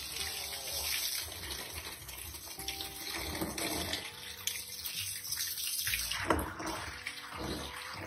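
A large volume of water gushing in a steady stream from an opened drain plug under a car and splashing onto the floor. This is water that had collected inside the vehicle, behind the customer's complaint of a water noise while driving.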